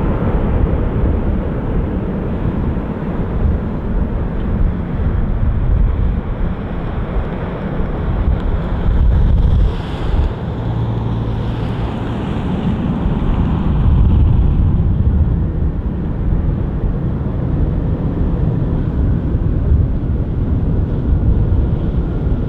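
Low, steady rumble of a Boeing 777-300ER's GE90-115B jet engines as the airliner passes, lands and rolls out, swelling again about halfway through, mixed with heavy wind noise on the microphone.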